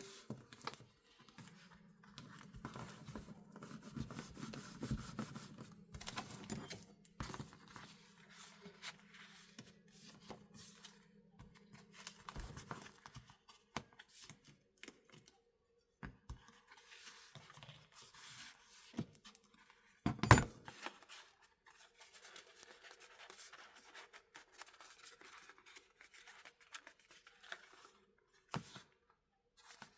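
Paper being worked with a small hand-held bookbinding tool: scattered scratches, scrapes and light clicks, with a low hum under the first dozen seconds and one sharp knock about twenty seconds in.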